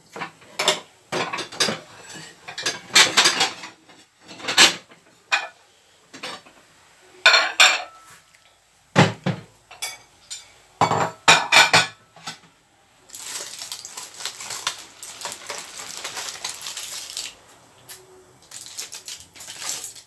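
A plate and a fork clattering: repeated sharp clinks of china and metal cutlery for the first dozen seconds. Then, a little past halfway, a steady crinkling rustle of aluminium foil being pulled open from a baking tray.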